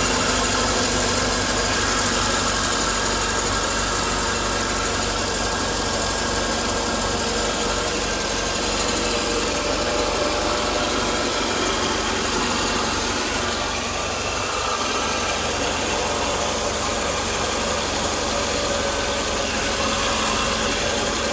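Mercedes-Benz W124 300E straight-six engine idling steadily after being started.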